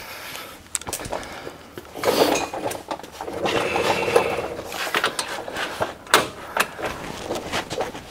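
Metal hand tools clinking and scraping on the front hub assembly, with scattered sharp clicks and two longer stretches of ratcheting or scraping, as the unit bearing's four mounting nuts are tightened.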